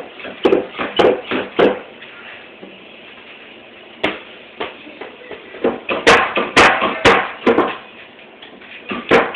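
A series of sharp knocks or taps, about two a second, in two runs with a quieter pause of about two seconds between them.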